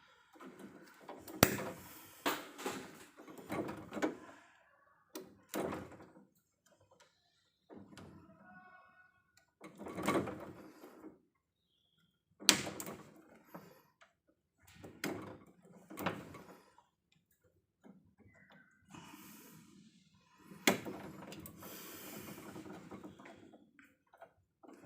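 Intermittent handling noise from work on an electrical distribution panel: sharp metallic clicks and knocks with spells of rustling and scraping between quiet gaps.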